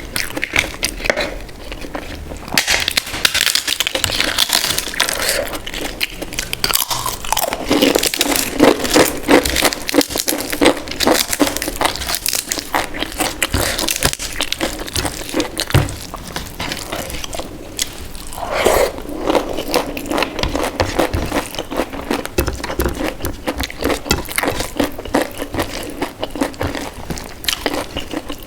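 A person biting, crunching and chewing crisp food close to the microphone: a dense run of crackling crunches, busiest a few seconds in and again about two-thirds of the way through.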